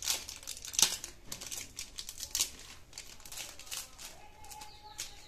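A wrapper crinkling and rustling as it is handled, with irregular sharp crackles; the loudest comes just under a second in.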